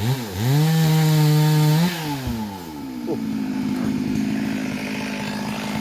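Two-stroke gasoline chainsaw at high revs, dipping and picking straight back up right at the start, then the revs falling about two seconds in and the engine settling to a steady idle.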